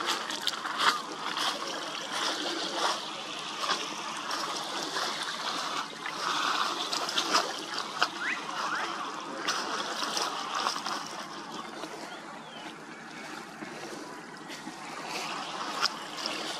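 Water lapping and splashing, with many small irregular slaps and trickles.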